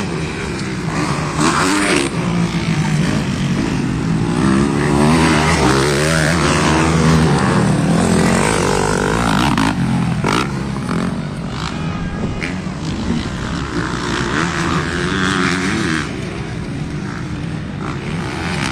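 Motocross bike engines revving on a dirt track, their pitch rising and falling again and again as the riders accelerate and shift through the gears.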